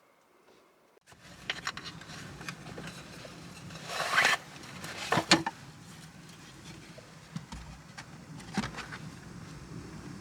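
Steady rain noise with a low hum, starting suddenly about a second in, on a car in a typhoon. Several sharp knocks and scrapes sound close by, the loudest a scraping burst about four seconds in and a pair of knocks just after five seconds.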